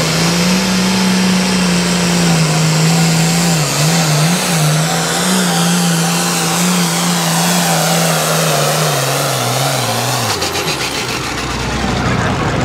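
International farm tractor's turbocharged diesel engine at full throttle pulling a weight-transfer sled. Its note holds steady, wavers briefly, sinks as the pass goes on, and falls away about ten seconds in as the pull ends.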